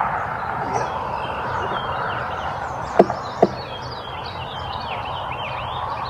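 Small birds chirping again and again over a steady background noise, with two sharp knocks close together about three seconds in.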